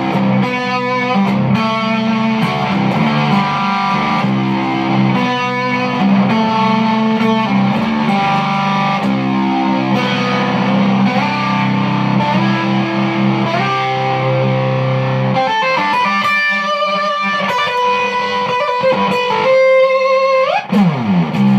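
Electric guitar played through a MK1 Tone Bender-style germanium-era fuzz pedal, a distorted fuzz tone. Low notes ring under a changing melody for most of the passage, then higher notes carry on alone, ending with a quick upward slide.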